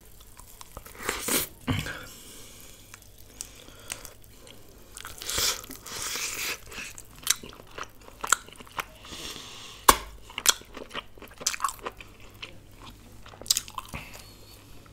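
Close-miked eating sounds: biting and chewing naan and sauce-coated chicken, irregular crunches and sharp clicks, the loudest about ten seconds in.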